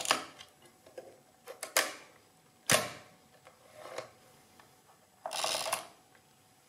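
Mechanism of an Addo Model 2 mechanical adding machine being worked by hand to clear its register: a few clicks, a sharp clack just under three seconds in, and a half-second rasping ratchet a little past five seconds in. The register clears only after the large main lever has been pulled.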